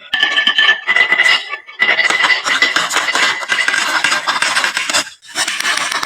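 Many marbles rolling and clattering down a wooden HABA marble run slope, a dense stream of clicks with a steady ringing rumble, breaking off briefly about a second and a half in and again near the five-second mark.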